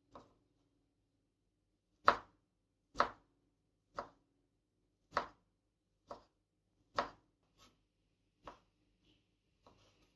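Kitchen knife chopping sheets of Korean fishcake (odeng) into strips on a wooden cutting board: about ten separate sharp knocks, roughly one a second, the loudest about two seconds in.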